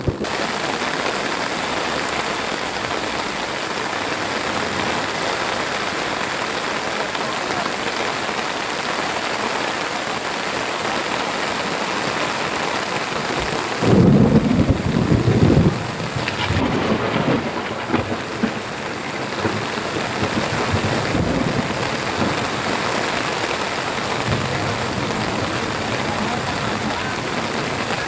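Heavy rain falling steadily, a continuous hiss of drops. About halfway through comes a loud low rumble lasting a couple of seconds, with weaker rumbles after it.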